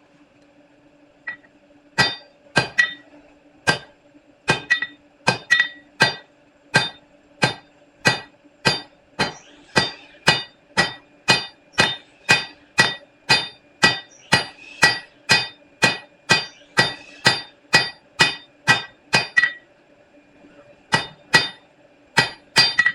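Blacksmith's hammer striking a hot 5/8-inch bar on the anvil to draw it out: steady blows about two a second, starting about two seconds in. They stop briefly, then a few quicker blows follow near the end.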